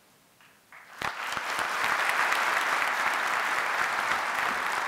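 Audience applauding, starting about a second in after a brief quiet and holding steady.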